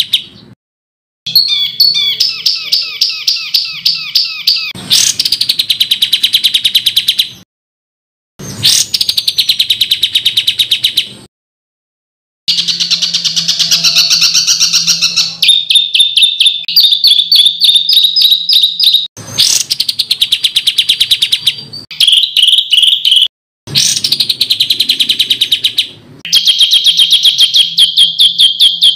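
Rapid, loud songbird songs made of fast repeated notes and trills with sharp upward sweeps: the harsh burst phrases used to tutor competition songbirds. The song comes as edited segments that cut off abruptly into silence several times, each followed by another bird's phrase.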